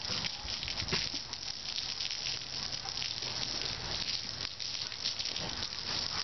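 Water from a garden hose spraying and falling onto wet concrete: a steady hiss with many small ticks of drops landing.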